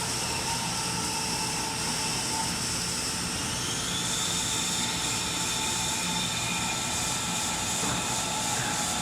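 Nakamura-Tome Super NTM3 CNC turning center running a machining cycle: a steady hiss under several steady high whines, one whine rising in pitch about three and a half seconds in and then holding.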